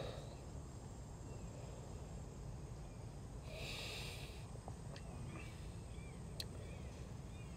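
A man drinking from a bottle, with one short, hard breath out through the nose about halfway through, over a steady low outdoor rumble. A few faint high chirps and a small click come near the end.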